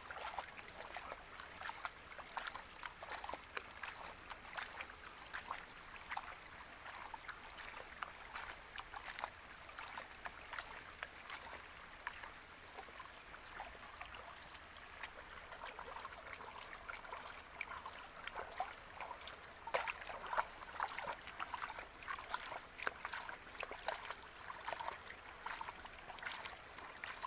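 Water sloshing and wet sand grating as gold-bearing black sand is swirled and worked by hand in a pan, with many small clicks and splashes.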